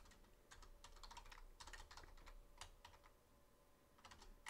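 Faint computer keyboard typing: irregular keystrokes in short runs, with a lull about three seconds in before a few more keys.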